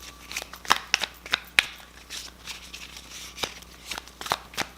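A tarot deck being shuffled and handled by hand: a run of sharp, irregular card snaps and slaps, several louder ones about a second in and again towards the end.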